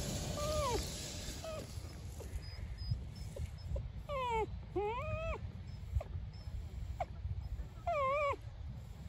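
Electric motor of a radio-controlled Traxxas truck whining in short throttle bursts: several times the pitch rises, holds briefly and drops away, over a low rumble.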